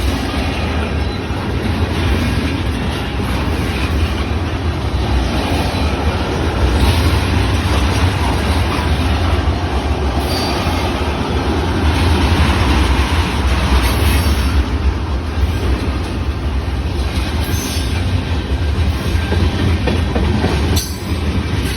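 Freight train of tank cars rolling past close by: wheels on rail making a steady, loud, deep rumble.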